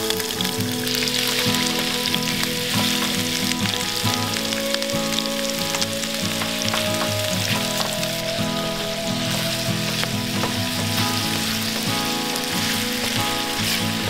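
Chopped food sizzling as it fries in a small nonstick pan on a portable butane camp stove, with light scrapes and clicks of a wooden spatula stirring it.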